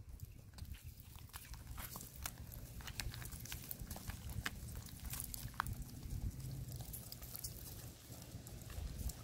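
White Leghorn and Easter Egger hens pecking at food in a hand-held bowl: quick, irregular clicks and taps of beaks striking the bowl and the food.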